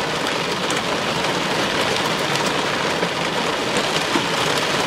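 Very heavy thunderstorm rain pouring down on a vehicle, heard from inside: a dense, steady hiss with scattered drop taps.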